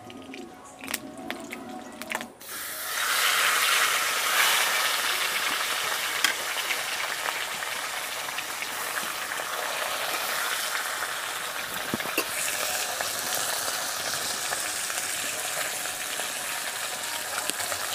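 A large fish head frying in hot oil in a wok. The sizzle sets in suddenly about two seconds in as the fish goes into the oil, is loudest just after, then settles into steady frying with scattered pops.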